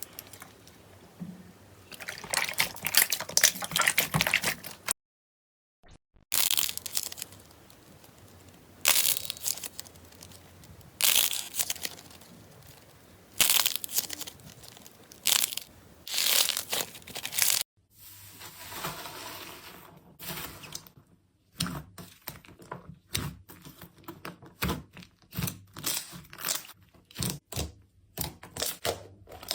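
Hands squeezing, stretching and poking slime: wet squelching and crackling bursts, with a second of silence about five seconds in. In the last third come rapid sharp crackles and pops, about two or three a second.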